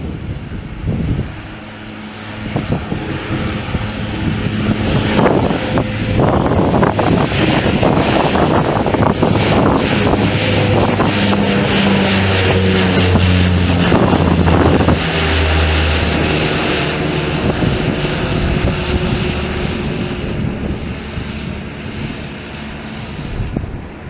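Embraer EMB-120 Brasilia twin turboprop climbing out after takeoff and passing overhead. Its propeller drone has a high turbine whine over it. The sound builds to its loudest around the middle, drops in pitch as the plane passes, and fades as it climbs away.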